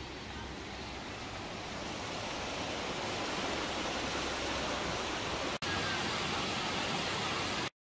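Shallow river rushing over stones: a steady hiss of water that grows louder over the first few seconds. After a brief break about five and a half seconds in, the rush of falling water goes on, then cuts off abruptly near the end.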